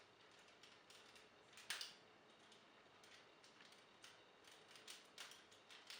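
Faint clicks and light rattling of hard plastic toy parts being handled and fitted together, with one sharper click about two seconds in and a few small ones near the end.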